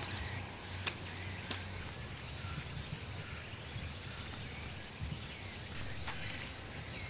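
Summer outdoor ambience with a steady high insect buzz over a low rumble, and two light clicks about a second in.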